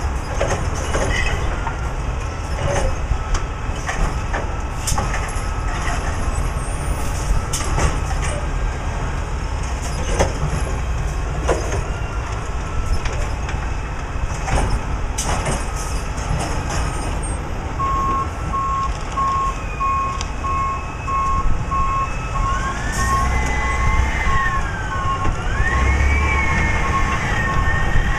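Recycling truck's diesel engine running steadily, with scattered knocks and clatter of containers being handled. About two-thirds of the way in, a steady beeping starts, and near the end a whine rises and falls twice.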